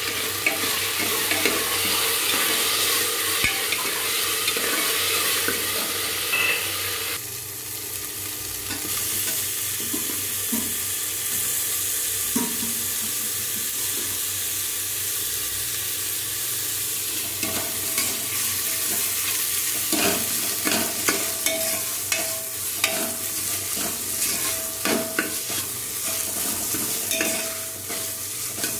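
Masala sizzling in hot oil in an aluminium pressure cooker, stirred with a metal ladle that scrapes and clicks against the pot. The scraping comes more often in the second half.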